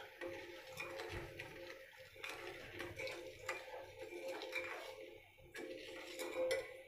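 Steel spoon stirring sugar and water in a stainless steel pot, scraping and clinking lightly and irregularly against the bottom and sides, over a faint steady hum. The stirring dissolves the sugar into syrup and keeps it from catching on the bottom of the pot.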